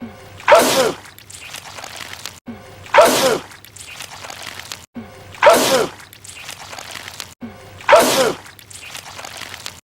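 A man's sneeze repeated on a loop, four times, about every two and a half seconds. Each is a short, loud burst that falls in pitch, with a brief dropout where the loop restarts just before it.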